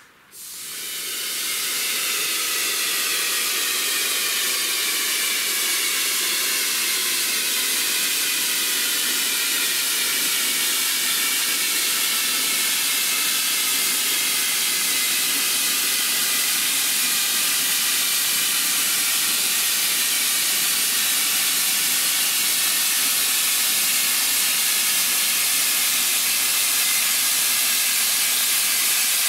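Compressed air hissing steadily through an air hose into a large rubber inner tube, inflating it. The hiss swells in just after the start and then holds, with faint tones in it slowly falling in pitch.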